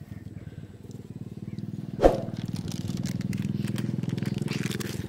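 A small engine running with a fast, even putter, growing louder from about a second in and easing off near the end. A single sharp knock about two seconds in is the loudest moment.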